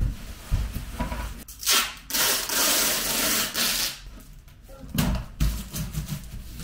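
A cardboard parcel box being handled on a wooden table. It knocks as it is set down. About two seconds in comes a long rasping rub of about two seconds. Near the end there are a few more low knocks as the flaps are pressed down.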